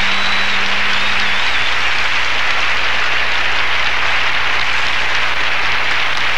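Audience applauding steadily after a song, with the music's last held note ending about a second in.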